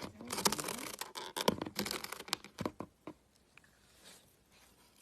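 Rustling and scratching noises with many sharp clicks, which stop about three seconds in.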